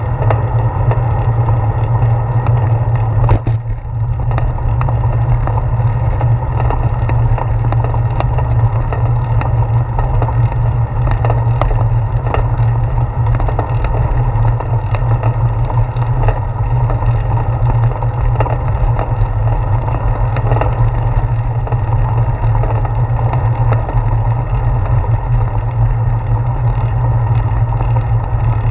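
Road and wind noise picked up by a handlebar-mounted GoPro Hero 4 on a moving bicycle: a loud, steady low rumble with frequent small knocks and rattles as the wheels roll over bumps in the street.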